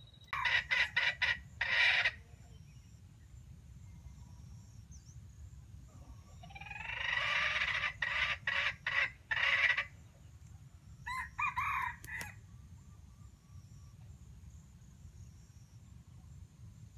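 Wild junglefowl rooster crowing twice in a stuttering, chopped-up way, each crow broken into several short bursts, then a shorter call a few seconds later.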